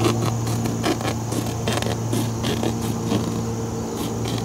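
Scissors snipping repeatedly through polyester roofing fleece as a strip is cut lengthwise, short irregular cuts several times a second, over a steady low hum.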